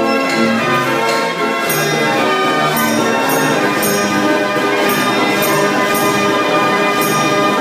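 Dutch street organ (draaiorgel) playing a tune: sustained pipe notes with a steady percussion beat.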